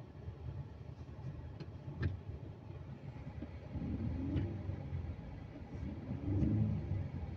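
Turbocharged engine of a 2016 Ford Explorer revved in Park, rising in pitch twice from a low idle with no air whistle now that the loose turbo hose has been clamped back on. A short click about two seconds in.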